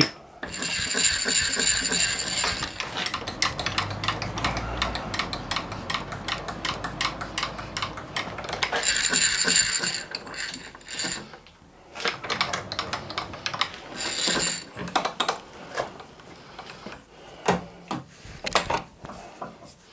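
Dense metallic clicking and clattering of hands setting up a brass workpiece in a milling machine's vise and spindle, with high-pitched ringing tones three times, the longest about a second in.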